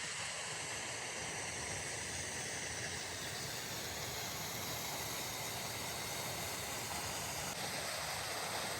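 Hot spring water rushing steadily, an even hiss with no breaks.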